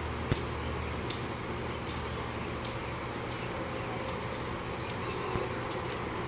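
Hand air pump worked in steady strokes, a short hiss about every three-quarters of a second, pressurizing a homemade water rocket before launch.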